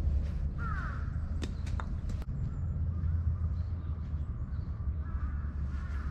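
A bird gives a short falling call under a second in, followed by three sharp wooden clacks; a steady low rumble of wind on the microphone runs underneath.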